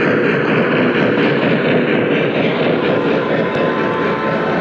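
O-gauge three-rail model train, a Southern Pacific steam locomotive's tender and passenger cars, rolling past close by: a steady rumble of metal wheels on the rails.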